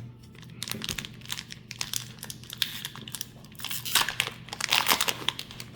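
Foil Pokémon booster pack wrapper crinkling and crackling as it is handled and torn open, with the loudest crackles about four to five seconds in.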